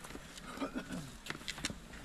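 Faint voices of people talking, with a few sharp footsteps on stone steps in the second half.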